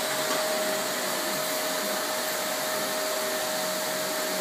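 Vacuum cleaner running steadily: an even rushing hiss with a steady motor whine.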